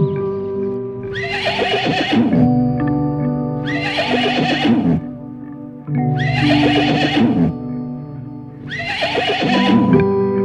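A horse whinnying four times, the same call each time, about two and a half seconds apart, over background music with long held notes.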